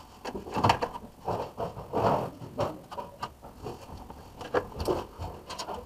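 Computer cables being handled and threaded by hand: irregular knocks, taps and rubbing as the cords are pulled and brush against the desk.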